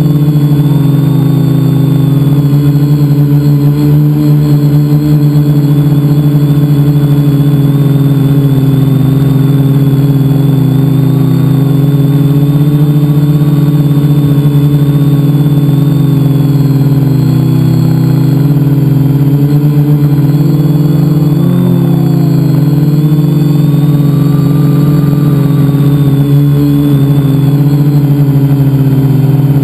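Multirotor drone's electric motors and propellers, heard from a camera on the craft itself: a loud steady buzz whose pitch wanders up and down a little as the throttle changes.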